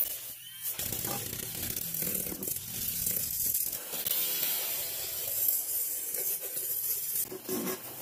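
Handheld battery milk frother whisking a hot milk mixture in a small saucepan, a steady frothing, swishing noise starting about a second in as it whips the liquid into foam.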